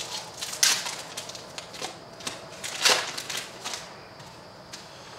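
Foil wrapper of a baseball card pack crinkling and crackling as it is torn open and the cards are handled, with a few sharp crackles, the loudest about a second in and again about three seconds in.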